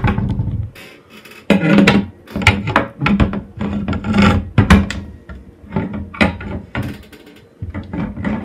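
Closet door being shut, with a run of knocks and thuds; the loudest knock comes right at the start.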